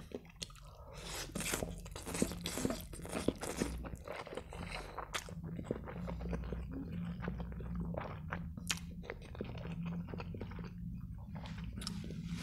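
Close-miked chewing of a mouthful of spaghetti in tomato sauce: wet mouth clicks and smacks, densest in the first few seconds and sparser after.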